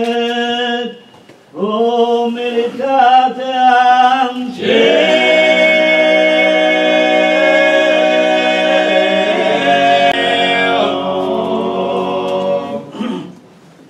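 Choir singing unaccompanied: a few short phrases with a brief pause after the first, then one long held chord that shifts in its lower voices about ten seconds in and fades away near the end.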